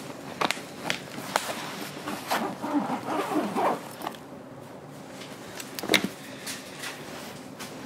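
Several sharp clicks and a rustle close to the microphone, with a short muffled voice-like sound about three seconds in, over a steady background.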